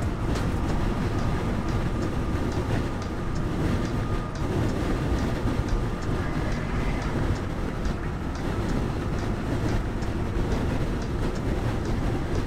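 Car running at highway speed over a long bridge: a steady rumble of tyres and wind, with light ticks about twice a second.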